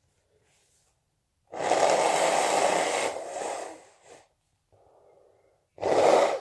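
A person blowing their nose: one long, loud blow of about two seconds that tails off, then after a pause a second, shorter blow near the end.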